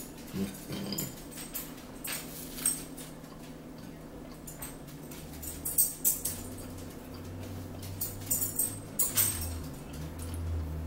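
Eating sounds close to the microphone: irregular chewing, lip-smacking and mouth clicks, with a low hum underneath from about halfway through.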